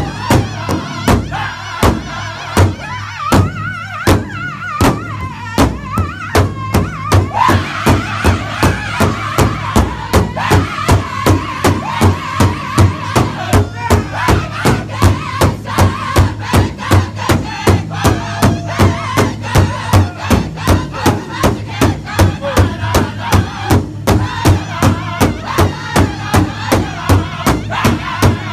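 Powwow drum group beating a large hand drum in unison with sticks at a steady, even beat, about two to three strokes a second, while the singers sing together over it.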